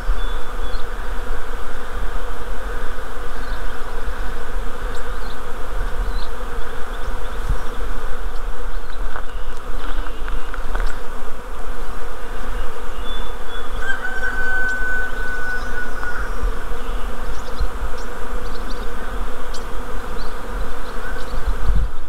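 A honeybee swarm buzzing: a dense, steady hum of many bees in flight.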